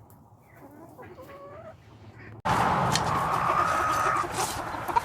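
Chickens clucking: faint at first, then much louder and busier from a sudden jump a little over two seconds in, with one drawn-out call held for about a second.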